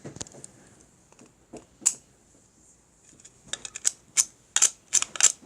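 Sharp plastic clicks and taps as toys are handled. They come singly at first, then in a quick run of clicks over the last two seconds.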